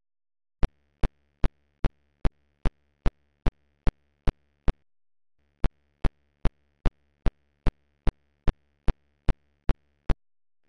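Evenly spaced sharp electronic ticks, about two and a half a second, over a faint low hum, pausing briefly about five seconds in.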